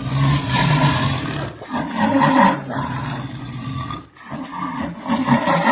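Jaguar roaring and growling in several long, rough phrases, with short breaks about one and a half seconds and four seconds in.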